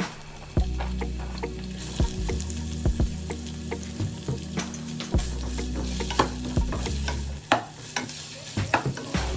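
Vegetables stir-frying in a pan for lomi: a sizzle with irregular knocks and scrapes of a spatula against the pan.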